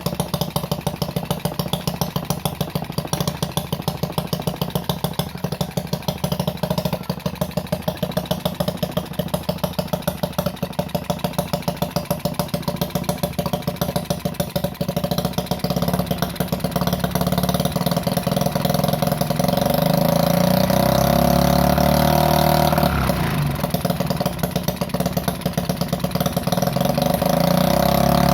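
Homemade mini four-stroke engine built from a refrigerator compressor, running with a fast, even train of firing pulses. It gets louder about halfway through and runs harder from about two-thirds in, with a brief dip shortly after.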